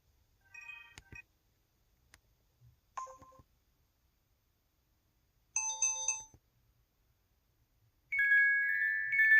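EV-W350 mobile phone's built-in alert tones played one after another: short electronic chimes about half a second, three and five and a half seconds in, then a longer held two-note tone from about eight seconds in.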